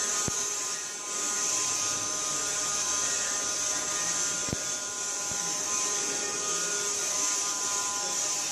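Handheld vacuum cleaner running with a steady high whine, its nozzle run over a cat's fur; a faint knock about four and a half seconds in.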